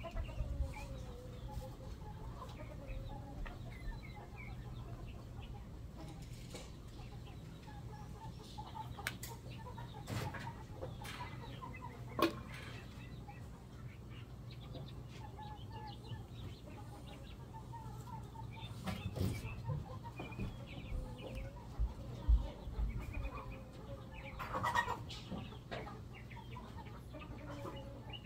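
Backyard chickens clucking on and off, with a few scattered sharp knocks.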